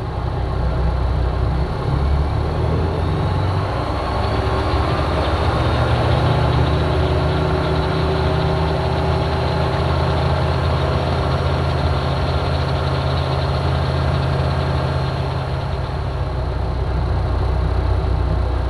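Small single-engine propeller airplane's piston engine running at low taxi power, heard from inside the cockpit: a steady drone with small shifts in pitch as the plane rolls along the taxiway.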